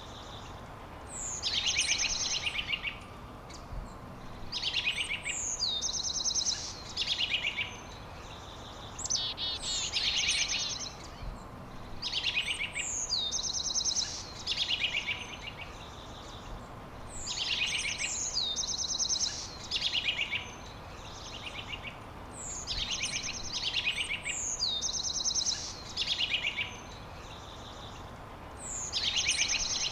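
A songbird singing the same short phrase over and over, about every two to three seconds, each phrase opening with a high falling note and running into fast, buzzy trills, over a steady background hiss.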